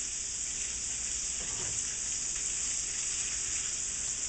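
Breaded, prosciutto-wrapped chicken deep-frying in hot oil: a steady sizzling hiss.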